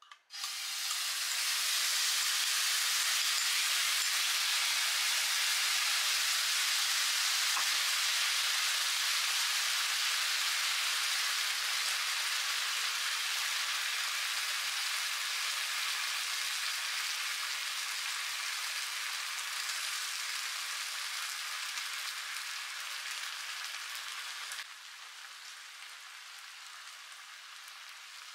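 Red chilli sauce poured into a hot non-stick frying pan, sizzling hard as it bubbles. The sizzle starts suddenly as the sauce hits the pan and drops abruptly to a quieter, steady sizzle a few seconds before the end.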